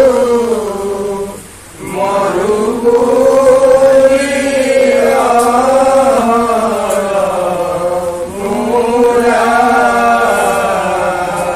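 Group of men chanting an Assamese devotional naam together, a slow drawn-out melodic line that pauses briefly for breath about a second and a half in.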